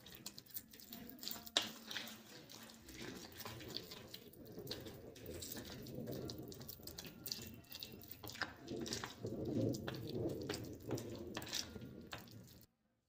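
Metal spoon stirring thick, wet gram-flour (besan) batter in a bowl: irregular squelching and sloshing with light clicks of the spoon against the bowl as the water is worked in. It cuts off suddenly near the end.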